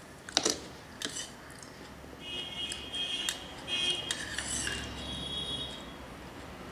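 Steel spoon clinking and scraping against a small stainless steel bowl: two sharp clinks in the first second or so, then a longer scrape with a high ringing squeal of metal on metal.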